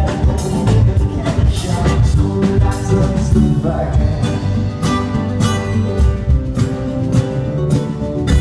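A live band playing, with guitar and drums keeping a steady beat.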